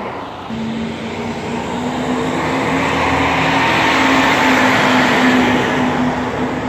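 Heavy diesel trucks passing close: a bobtail semi tractor pulling away, then a rear-loader garbage truck driving by. Engine and tyre noise swell to a peak about four to five seconds in, over a steady engine tone.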